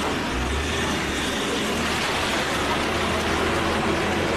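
Ambulance engine running, a steady low hum that comes in about half a second in over a background of noise.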